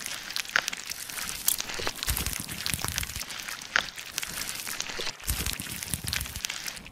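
ASMR foley crackling and crinkling, a dense run of sharp little clicks with a few soft low thuds, set to tweezers picking at a wound.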